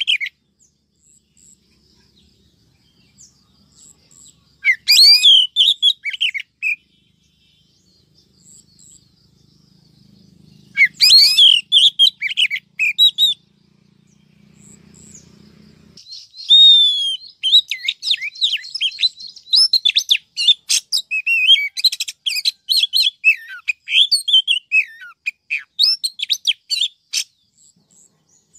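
Recorded song of a female oriental magpie-robin, a lure call for rousing males. Two short phrases of quick whistles and chirps come about five and eleven seconds in, then a long run of rapid, varied notes from about sixteen seconds on.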